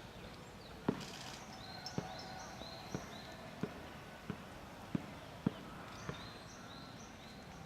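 Great spotted woodpecker pecking at wood: about eight separate sharp taps at an uneven, unhurried pace, roughly one a second, slower than drumming. Small birds give short high chirps behind.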